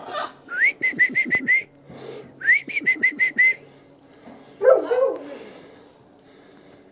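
A person whistling to call the puppies: twice, a rising note that runs into a quick string of about five short notes at the same pitch. About four and a half seconds in comes one short, louder cry.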